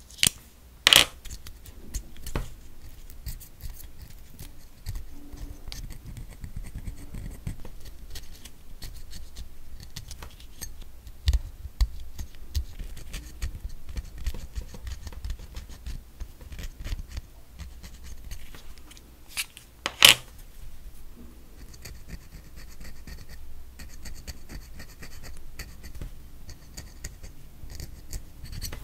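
A stainless steel cuticle pusher scraping soaked, softened gel polish off fingernails: a steady run of small scratches and ticks. A few sharp clicks stand out, the loudest about twenty seconds in.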